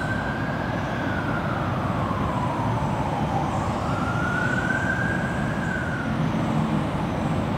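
An emergency-vehicle siren wailing, its pitch sliding slowly down, back up and down again, over a steady background rumble.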